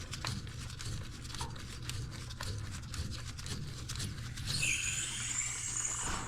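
Faint rubbing and scattered light clicks of handling, over a steady low hum. A faint high whine comes in near the end.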